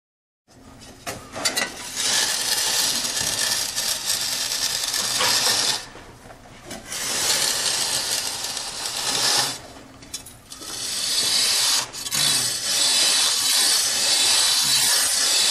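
A flat-bladed tool scraping across semi-dry, brownstone-tinted repair mortar, profiling it into a true plane with a granular surface. It comes in several long strokes of a few seconds each, with short pauses between.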